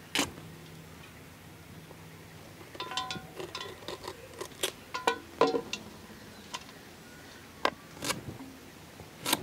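Tender cucumbers being cut on a foot-held curved blade, a run of short sharp clicks and knocks with pieces clinking against a steel bowl of water, busiest in the middle few seconds.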